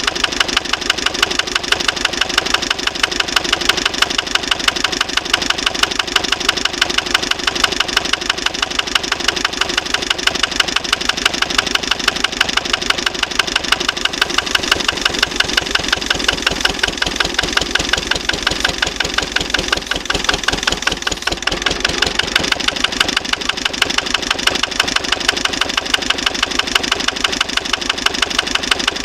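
A 1956 Lister LD1 single-cylinder diesel stationary engine running steadily at slow speed, with an even, rapid beat of its firing strokes. It has been slowed down from its rated 1500 rpm.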